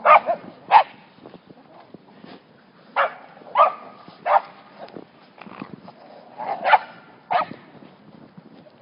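A dog barking, about seven short barks at uneven intervals with pauses in between.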